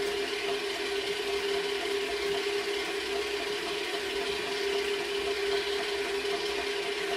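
Clarke Pro 90 MIG welder's wire feed motor running steadily at speed 6 to 7, its drive roller pushing the welding wire up through the torch liner: a continuous mechanical whir over a constant hum.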